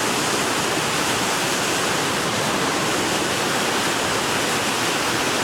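Steady rush of water pouring out through a dam's open gates, a loud, even noise with no let-up.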